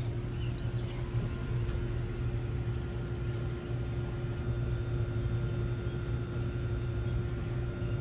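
Outdoor air-conditioning unit running: a steady low hum with a fainter even tone above it.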